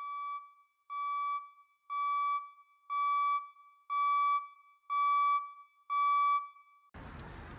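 Electronic beeper sounding seven evenly spaced beeps about a second apart, all on one steady pitch, with a faint continuous tone under them and a dead-silent background. Just before the end the beeping stops and a steady outdoor hiss comes in.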